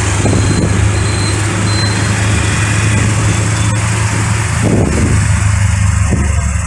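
Vehicle engine and road traffic noise, heard while travelling through city streets, over a steady low engine hum.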